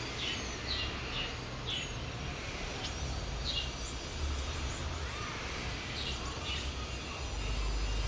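Purple sunbirds chirping: about eight short, high chirps, most in the first few seconds and a couple more later. A steady low rumble runs underneath.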